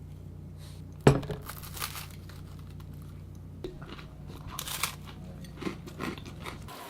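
Crackers being crunched and handled during a peanut butter and jam snack, with a sharp knock about a second in and scattered crackly noises later. A low steady hum runs underneath and stops near the end.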